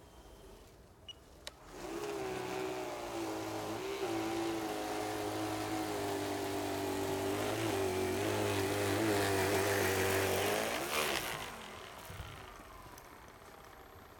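Prototype single-stage R/C snow blower running and throwing snow. Its motor starts up about two seconds in with a steady whine that steps up in pitch and wavers. It shuts off near the end and winds down.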